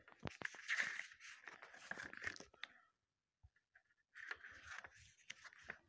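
Paper rustling as the glossy pages of a booklet are handled and turned, in two spells with a short pause about halfway through.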